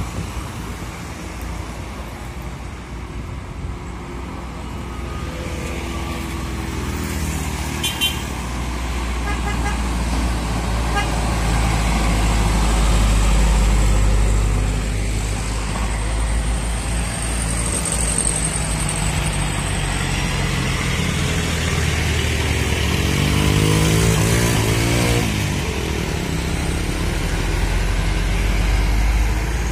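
Trucks and motorcycles passing one after another up a steep hill, with a loud, steady rumble of engines working under load. About two-thirds of the way through, one engine's pitch climbs as it revs up.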